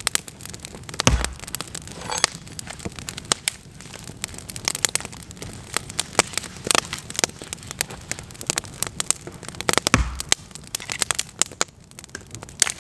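Wood campfire crackling, with frequent irregular sharp pops and snaps. Two heavier low thumps, about a second in and about ten seconds in, stand out from the crackle.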